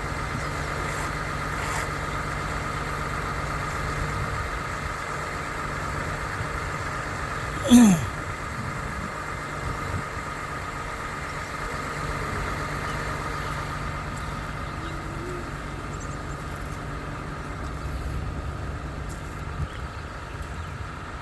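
Engine of a concrete pump running steadily, a low hum with a constant whine above it. About eight seconds in there is one brief, loud sound that slides sharply down in pitch.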